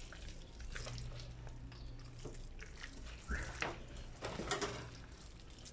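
Wet handling of a raw chicken being deboned by hand in a stainless steel sink: scattered squelches, splats and taps of flesh and skin against the metal, a few louder ones between about three and five seconds in, over a low steady hum.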